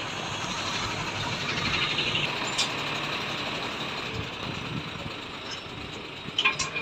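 Truck engine running steadily, with a few sharp metallic clinks near the end.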